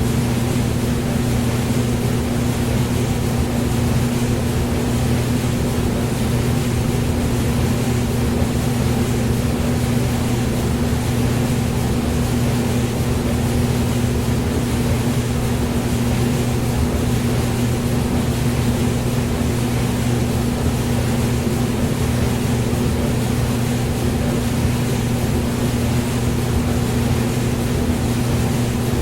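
Hair dryer running steadily: a constant low motor hum under the even rush of blown air, with no change in speed.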